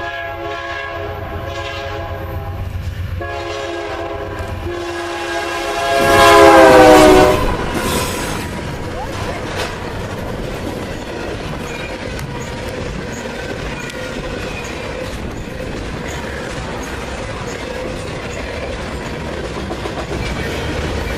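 Norfolk Southern freight locomotive's multi-chime air horn: a long blast breaks off about three seconds in and a second blast follows at once. Its chord drops in pitch as the locomotive passes, loudest about seven seconds in. Then the train rolls by with steady wheel noise and clatter over the rail joints.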